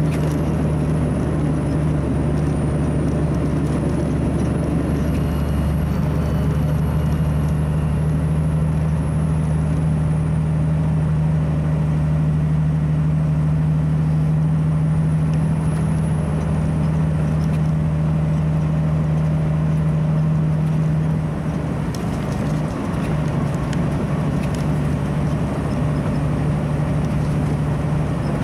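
Heavy truck's diesel engine pulling steadily along a gravel road, heard from inside the cab as a steady low drone. The drone drops off a little over twenty seconds in, then picks up again more quietly.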